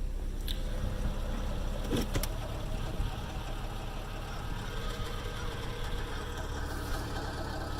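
2005 Subaru Impreza RS 2.5-litre flat-four engine idling after a rebuild, with the chugging noise that shows up in park or neutral after a cold start. The owner suspects a torque converter that has to fill up before it runs fine. A few sharp clicks come in the first couple of seconds.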